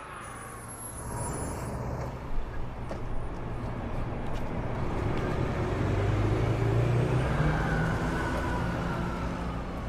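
City bus engine running as a bus pulls into the stop, a low drone that grows louder to a peak about two-thirds of the way through and eases off slightly near the end.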